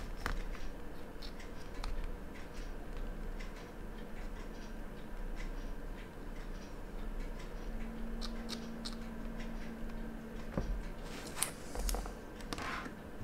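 Faint scratching and small scattered clicks of fingers in rubber finger cots handling and cleaning a watch dial, over a low steady hum.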